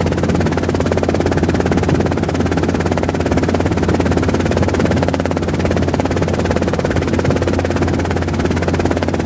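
Robinson R22 helicopter in flight, heard from on board: the steady drone of its piston engine and rotors with a fast, even rotor beat.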